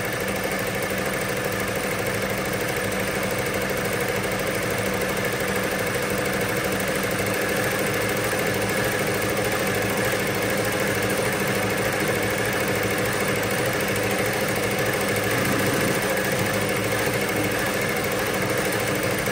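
ZSK multi-needle commercial embroidery machine running steadily at constant speed, stitching a design.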